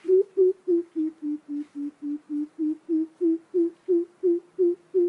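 Greater coucal giving its deep hooting call: an even series of low hoots, about three a second, sagging a little in pitch through the middle and then rising again.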